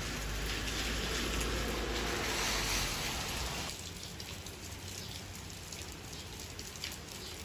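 Steady rain falling and splashing onto wet paving tiles and puddles. A low rumble sits under it for the first few seconds, and the sound steps down to a softer, even hiss about three and a half seconds in.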